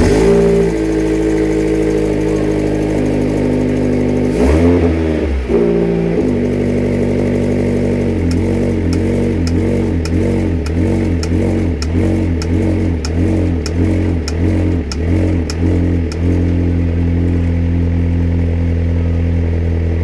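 Vauxhall VX220's Z22SE 2.2-litre four-cylinder engine running just after start-up, with a brief rev about four seconds in. Through the middle stretch the idle wavers rhythmically and sharp clicks sound over it: the strange knocking the owner is trying to trace.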